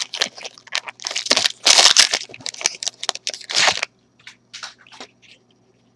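A trading card pack wrapper being torn open and crinkled: a run of noisy rips and crinkles for about four seconds, then a few fainter rustles.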